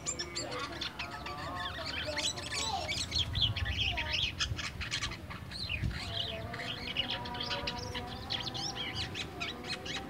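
A caged white-shouldered starling (jalak kapas) singing a long, varied run of rapid chirps and sliding whistles. The song is still at the twittering "ngeriwik" stage of a newly kept bird.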